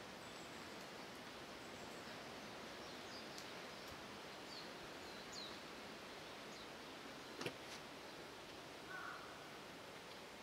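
Faint outdoor ambience with a few brief, high chirps of small birds and one sharp click about two thirds of the way through.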